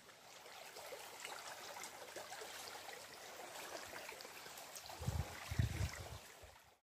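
Small shallow stream trickling and splashing over rocks, with a few low thumps about five seconds in; the sound cuts off suddenly just before the end.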